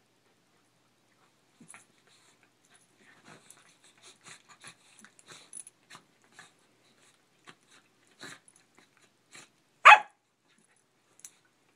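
Two corgis play-fighting with their mouths: a run of short, breathy huffs and mouth noises. About ten seconds in comes a single loud, sharp bark.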